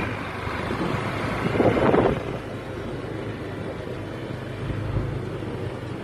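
Motorcycle engine running steadily while riding, with wind rushing over the microphone; the noise swells briefly about a second and a half in.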